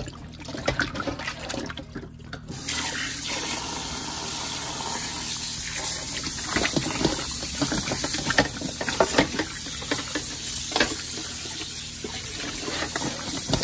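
Kitchen tap running into a steel bowl in a stainless-steel sink, with splashing as whole raw chickens are rubbed and rinsed by hand. The water comes on about two and a half seconds in and then runs steadily.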